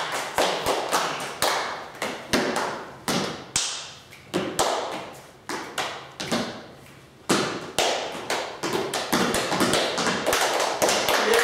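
Body percussion with no instruments: hand claps and foot taps and stamps in an irregular, improvised rhythm, each stroke echoing briefly. The strokes thin out and grow quieter about six to seven seconds in, then pick up again.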